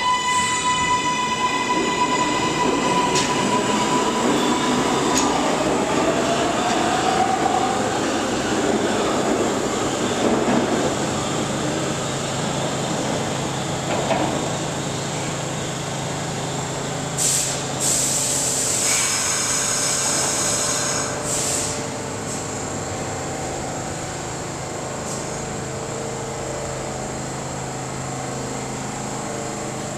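New York City Subway R142A train pulling out of the station. Its traction motors give a whine that climbs in pitch and holds a steady tone for about five seconds, then it fades into the rumble of the cars on the rails. About halfway through comes a few seconds of high hiss, and a low steady hum runs under the rest.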